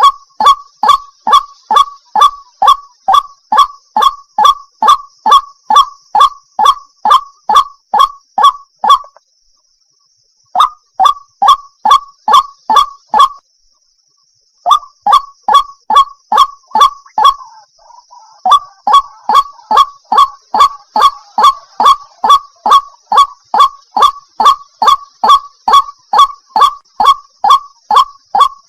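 Waterhen calling: a steady, fast series of short, loud, identical honking notes, about two to three a second, broken by two short pauses partway through.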